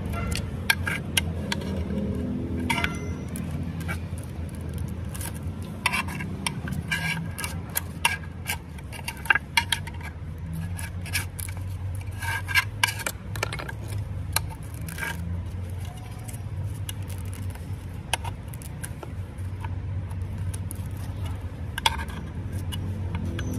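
Steel scraper and pick scraping blistered paint off a metal saw blade guard: irregular scrapes and sharp metal-on-metal clicks as the coating lifts, over a low steady hum.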